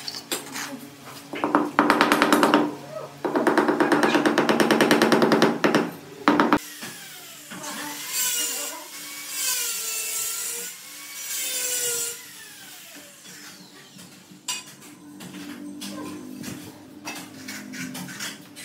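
A small power tool buzzes in two bursts in the first few seconds, the second about three seconds long, followed by a sharp knock. After that comes the rubbing and scraping of a rag working dry sand-and-cement mix over a glazed ceramic tile floor, with wavering squeaks.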